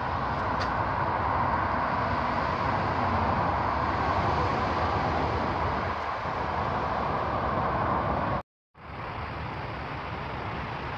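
Steady hum of nearby road traffic, with no distinct events, cutting out abruptly for a moment about eight and a half seconds in.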